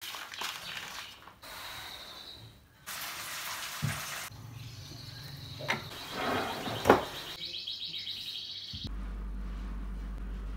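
A quick run of short household handling sounds, cut one after another: rustling and scraping, a few sharp clicks or knocks (the sharpest about seven seconds in), then a steady low hum near the end.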